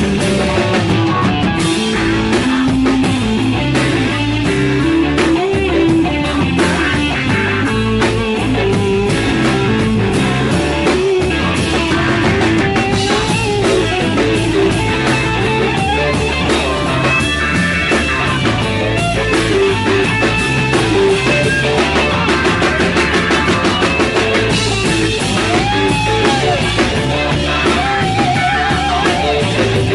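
Live rock band playing an instrumental passage: a wavering electric guitar lead over drums and a stepping bass line.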